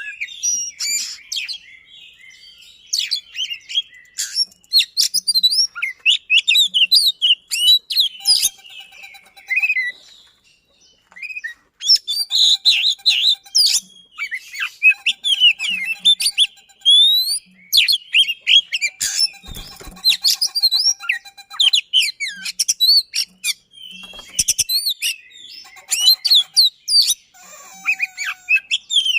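Oriental magpie-robin (kacer) singing a loud, fast, varied song of sweeping whistles, rattles and sharp notes packed close together, with a brief pause about ten seconds in.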